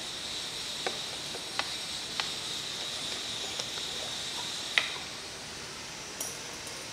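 About six small, sharp clicks and taps of a plastic reagent bottle being uncapped and its cap set down, and a glass test tube handled, the sharpest about five seconds in, over a steady hiss.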